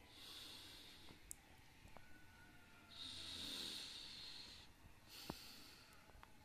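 Faint breathing close to the microphone, three slow breaths, with a couple of light clicks.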